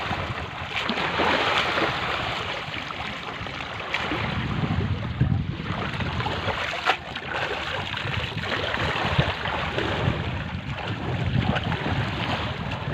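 Wind rushing on the microphone over shallow seawater lapping and splashing as a fish is rinsed by hand, with a sharper splash about seven seconds in.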